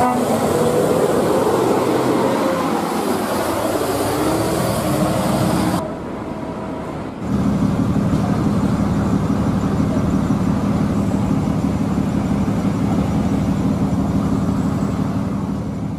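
A coach bus driving on a wet road: a steady hiss from the tyres on wet tarmac, with the engine underneath. About six seconds in, the sound cuts off abruptly. After a short quieter stretch, a bus's diesel engine runs with a steady low hum.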